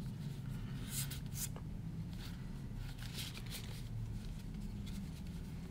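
Tarot cards being slid apart and fanned through by hand: faint, brief papery swishes about once a second, over a low steady hum.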